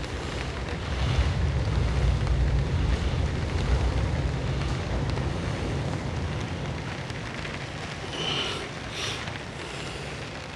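Strong wind buffeting the microphone over the rush of heavy storm surf breaking on the shore. The wind rumble swells about a second in and eases toward the end.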